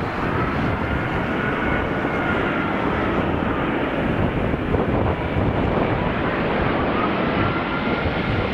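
Airbus A380 on final approach, its four Rolls-Royce Trent 900 engines at low power: a steady jet rumble with a faint fan whine that wavers in pitch.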